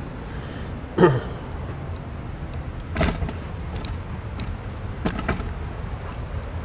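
Handling noise from a camera being picked up and carried: a loud bump about a second in, then a few clicks and knocks around three and five seconds, over a steady low background hum.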